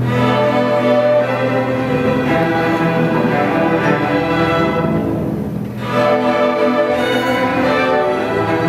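School string orchestra playing, violins and cellos bowing held chords, with a brief softer moment about five seconds in before the full ensemble comes back.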